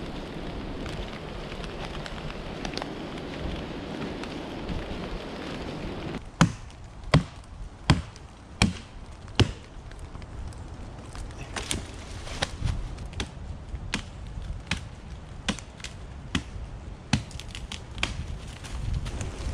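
An axe chopping into a fallen log. About six seconds in come five loud chops, roughly three-quarters of a second apart, followed by a run of lighter, quicker chops and knocks.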